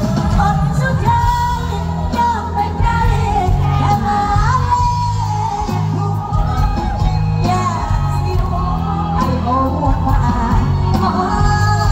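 Live Thai mor lam band music: a voice sings a gliding melody over a steady bass and drum beat.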